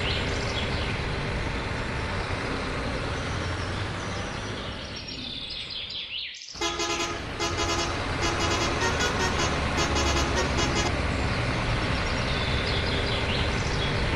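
Truck-like engine running with short, repeated horn toots. The sound fades out about six seconds in and cuts abruptly back in.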